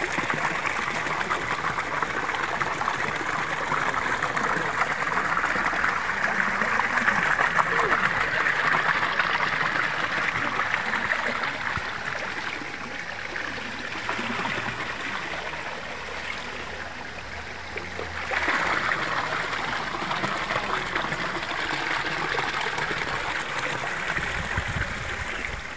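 Water running over rocks in a stream or small cascade, a steady rush. It softens for a few seconds past the middle and swells back up about three quarters of the way through.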